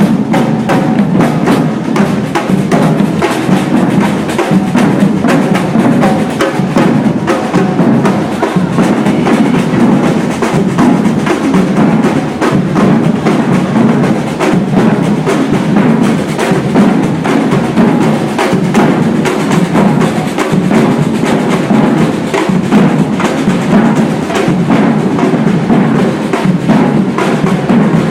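Percussion ensemble drumming a loud, dense, driving rhythm of many drums with sharp woody clicks on top. The whole group comes in together at full volume at the start.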